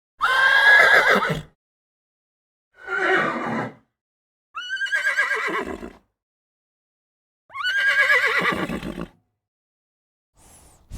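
A horse whinnying four times, each call opening with a quick rise in pitch and then sliding down in a quavering descent, with short silences between calls.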